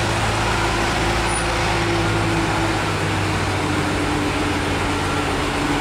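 A city bus's engine running steadily as it moves along the street, a low even hum over general traffic noise.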